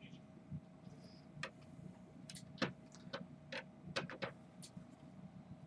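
Light clicks and taps of hard plastic graded-card holders being picked up and set down against one another on a table, about ten at irregular intervals, over a faint steady hum.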